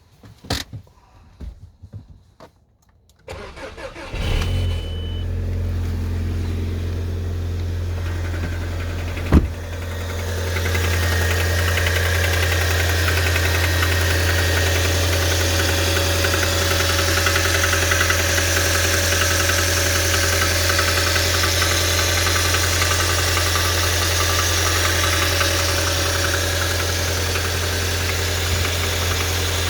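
Audi A4 B7's 2.0 TFSI turbocharged four-cylinder petrol engine being started: a few clicks, then the engine is cranked and catches about four seconds in and settles into a steady idle. A single sharp click comes about nine seconds in, and the idle grows a little louder soon after and stays steady.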